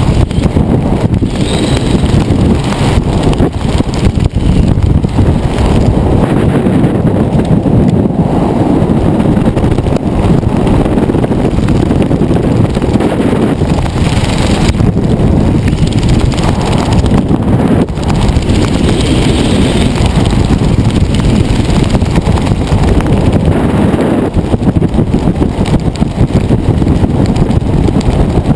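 Wind rushing over a helmet camera's microphone during parachute canopy flight: a loud, steady, low rumbling rush of air.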